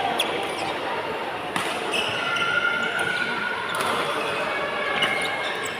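Badminton rally: sharp racket strikes on the shuttlecock, about one every second and a half.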